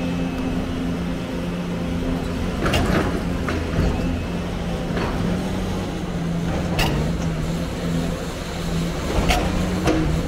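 Heavy machine's diesel engine running at a steady speed, with about half a dozen sharp clanks and knocks scattered through.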